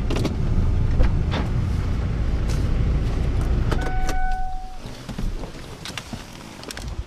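Car engine idling, heard inside the cabin, then switched off about four seconds in, with a one-second electronic beep at shut-off. Scattered clicks and knocks of things being handled in the car.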